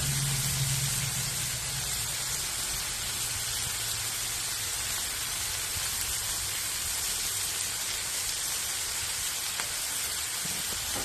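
Ribeye steaks sizzling steadily on a hot Blackstone flat-top griddle, a continuous rain-like hiss. A low hum sounds under it for the first couple of seconds, then fades.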